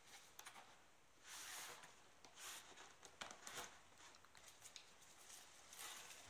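Faint rustling and scuffing as a cardboard shoe box and the mesh dust bag inside it are handled, in several short swishes, the longest about a second and a half in.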